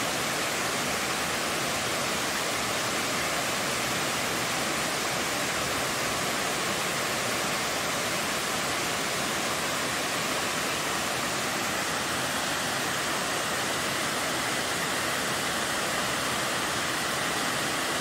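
Waterfall cascading down a steep rock face: a steady, unbroken rush of falling water.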